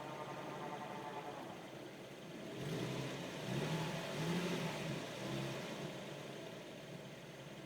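Infiniti G37's 3.7-litre V6 running with a steady, high whine of unknown cause. The engine sound grows louder for a few seconds in the middle.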